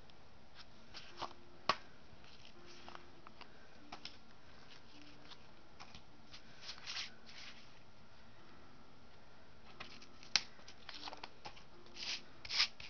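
Paper and cardboard being handled: a record sleeve and books shifted and turned over, giving scattered rustles and slides with a few sharper taps, the loudest about two seconds in and about ten seconds in.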